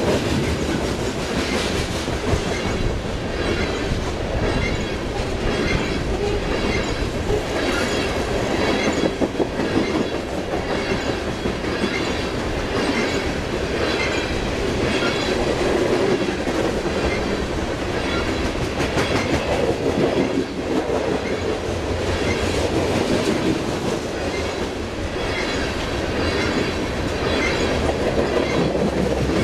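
Loaded coal cars of a freight train rolling past: a steady rumble of steel wheels on the rails, with repeated clicks as the wheels cross rail joints.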